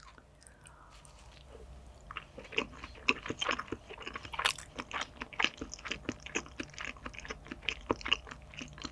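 Close-miked eating sounds of caviar with food: after about two seconds, a run of quick wet clicks and crunchy chews.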